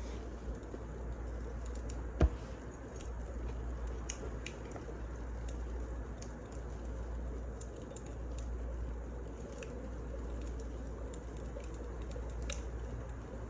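Wood fire burning, with scattered small crackles over a steady low rush and one sharp loud pop about two seconds in.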